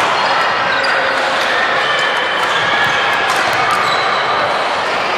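Badminton rally on a wooden sports-hall floor: sharp racket hits on the shuttlecock and short squeaks of shoes on the court, with a cluster of clicks about two to four seconds in. Beneath it runs the steady, echoing din of a busy hall.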